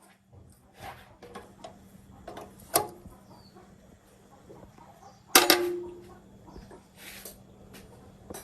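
Scattered clinks and knocks of metal tools and parts during diesel engine repair work, with two louder metallic clanks about three and five and a half seconds in, the second ringing briefly, over a faint steady hum.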